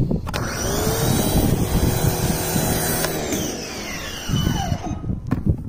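SunJoe electric pressure washer's motor starting with a rising whine and running with the hiss of its foam cannon spraying soap. About three seconds in it cuts off and winds down with a falling whine.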